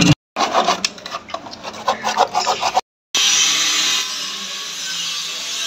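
Scraping and rubbing of hand work on a PVC rain pipe and its gritty masonry surround: uneven scrapes at first, then a steady rasping from about three seconds in.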